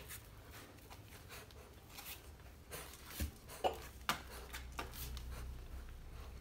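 Faint rustling and a few soft taps over a low steady hum, with two or three clearer taps a little past the middle.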